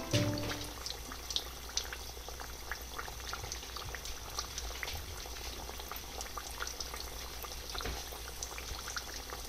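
Panko-coated rice croquettes deep-frying in hot oil: a steady sizzle dotted with many small pops and crackles.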